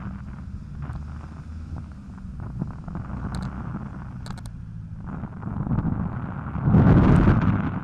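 Wind buffeting and road rumble on a helmet-mounted action camera's microphone while cycling, with a few faint clicks and a louder rush of noise near the end.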